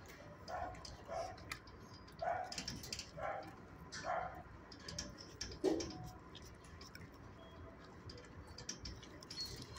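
Dog chewing and crunching dry treats: about six crisp crunches roughly a second apart, then only faint clicks.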